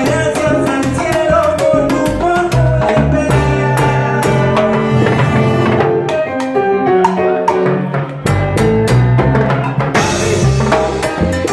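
Live salsa band playing a salsa number, with drums and percussion driving a steady beat under sustained melodic lines. A brief burst of high hiss about ten seconds in.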